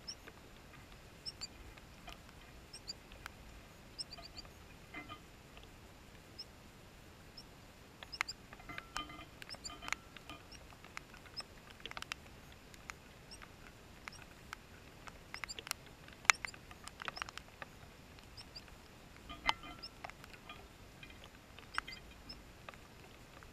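A small finch, apparently an American goldfinch, feeding at a metal tube seed feeder: irregular light clicks and taps, a few sharper ones near the middle, with faint high chirps of small birds.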